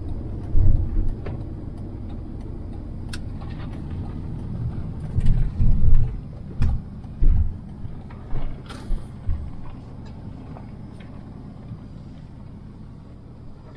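Cab noise inside a Mercedes-Benz van: a steady low road and engine rumble that fades as the van slows, with several short low thumps between about five and nine seconds in.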